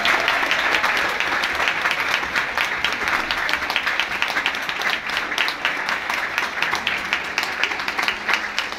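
Audience applauding, a dense patter of clapping at first that thins out into more separate claps in the second half.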